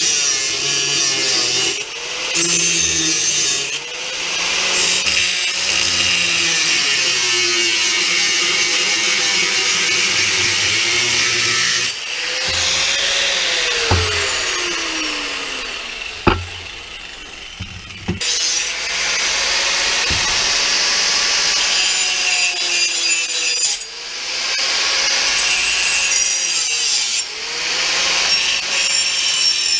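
A power tool cutting a steel saw blade, a harsh high grinding hiss over a motor tone that sags and recovers as it bites. About twelve seconds in the tool is let off and winds down in pitch over a few seconds, then starts up again about eighteen seconds in and carries on cutting.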